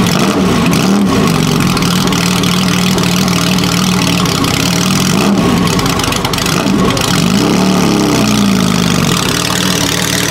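The Ferrari Dino 2.4-litre V6 of a 1975 Lancia Stratos Gr.4 rally car idles through its exhausts just after start-up. There is a short throttle blip about half a second in, and a longer rise and fall in revs about two-thirds of the way through.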